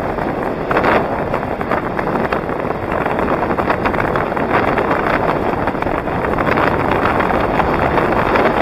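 Steady rush of wind over the microphone of a camera moving along the road, mixed with rolling road noise.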